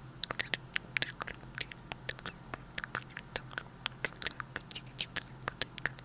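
Close-miked ASMR mouth sounds: rapid, irregular wet clicks and pops of the tongue and lips, several a second, made into a clip-on microphone with a hand cupped over the mouth.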